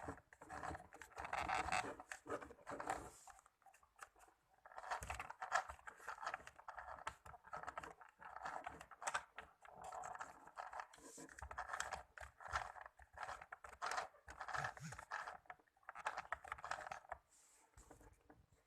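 Mini sewing machine stitching through cloth as a test after its thread tensioner has been tightened: irregular clicking of the needle mechanism with scraping and rustling of the fabric, in spells broken by short pauses.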